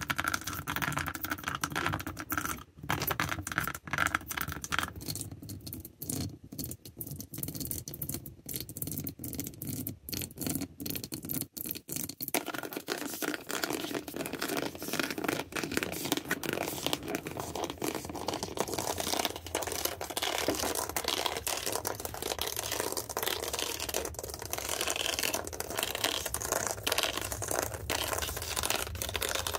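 Backs of fingernails scratching and tapping rapidly on objects close to the microphone, a dense run of small clicks and scrapes. The texture changes about twelve seconds in and again about seven seconds later as the surface or stroke changes.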